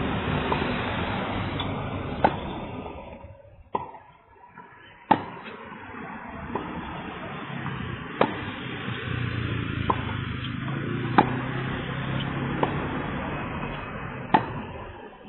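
Tennis ball struck by rackets in a steady rally: a sharp pop about every one and a half seconds, every other hit louder, over steady background noise.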